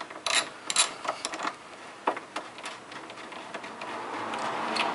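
Ratchet wrench with a 12 mm socket clicking in short, uneven strokes as it backs out a radiator bracket bolt, with a soft rustling noise building near the end.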